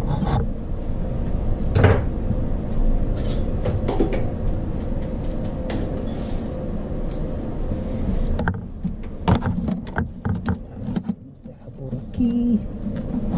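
Scattered metal clicks and clinks of a long socket extension and 17 mm socket being fitted and worked onto a starter bolt in the engine bay, over a steady background hum that drops away about two-thirds of the way through.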